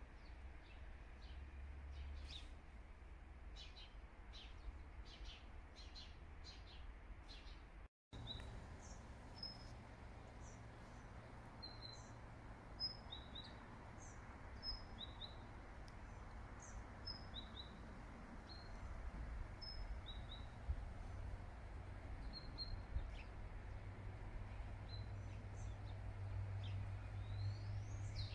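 Small birds chirping: short, high calls repeated and scattered throughout, over a faint low hum that grows a little louder near the end. The sound cuts out for an instant about a third of the way in.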